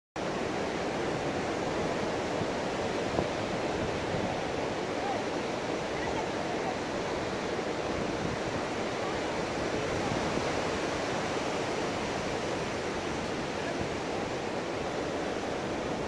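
Steady rush of ocean surf breaking on a sandy beach, cutting in abruptly at the very start.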